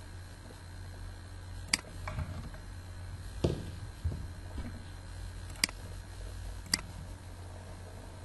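Three sharp computer-mouse clicks, about 2, 5½ and 7 seconds in, with a couple of duller knocks between them, over a steady low electrical hum.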